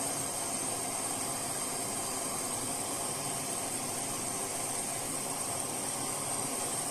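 Samsung washing machine running a wash cycle with a steady, even noise, its drum bearings and seal freshly replaced.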